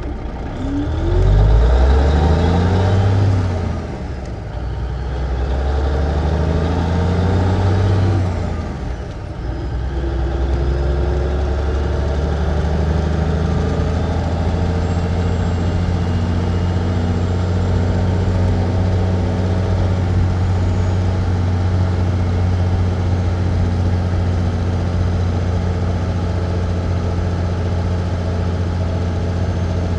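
A 1954 big rig truck's engine heard from inside the cab, pulling away: the engine note climbs twice with a drop between, as in a gear change, then settles about 10 seconds in and runs steadily at one engine speed.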